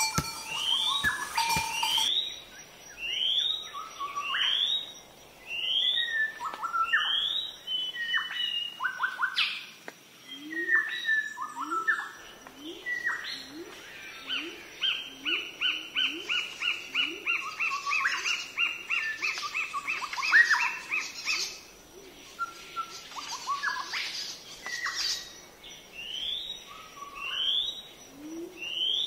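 Wild birds singing: a short rising chirp repeated about every second or so, a fast run of notes through the middle, and lower rising calls, over a steady thin high tone. A few dull thumps are heard in the first two seconds.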